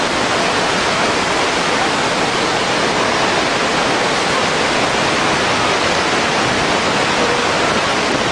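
Victoria Falls' water pouring over the lip of the gorge: a steady, unbroken rush of falling water.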